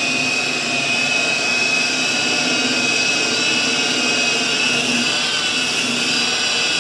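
Rotary polisher running steadily at low speed with a steady whine, its foam pad spreading scratch-repair compound over car paint.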